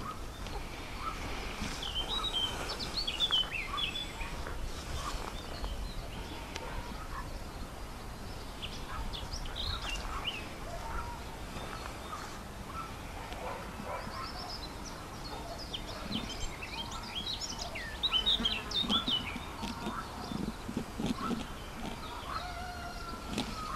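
Small songbirds chirping and trilling in short scattered phrases, in clusters near the start, around the middle and in the last third, over a steady low rumble.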